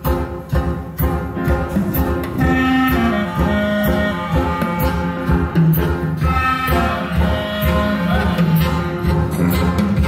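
Instrumental music with a steady beat, instruments holding sustained notes over it.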